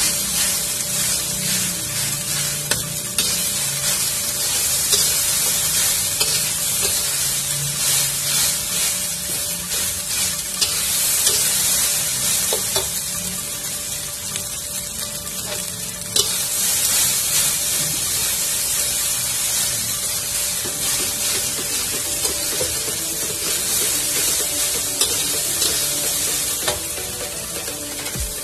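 Fried rice sizzling in a wok while a metal spatula stirs and tosses it, with scattered scrapes and knocks of the spatula against the pan.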